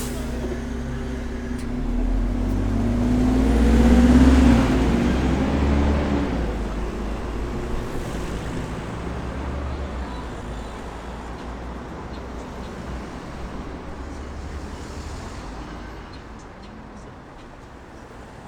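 City bus engine idling, then revving up as the bus pulls away, loudest about four seconds in. It then drives off, fading steadily into traffic noise.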